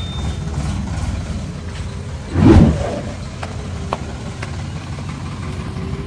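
Sonalika DI 47 RX tractor's diesel engine running steadily while pulling a loaded trailer, with a brief loud burst about halfway through.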